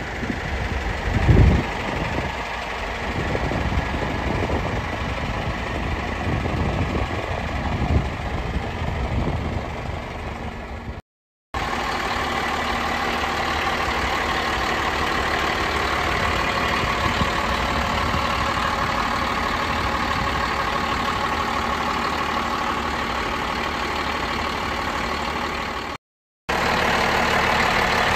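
Caterpillar 12H motor grader's turbocharged six-cylinder diesel engine idling steadily, heard close with the engine compartment open. A couple of low thumps come in the first few seconds.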